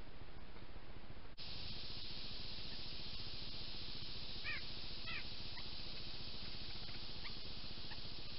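Steady hiss from a trail camera's microphone, cut by a brief dropout about a second and a half in. From the middle onward there are a few short bird calls: two quick multi-note calls close together, then scattered single notes.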